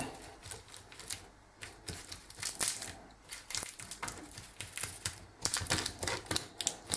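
Fork mashing the hot flesh of a freshly baked jacket potato, making a quick, irregular run of clicks and taps.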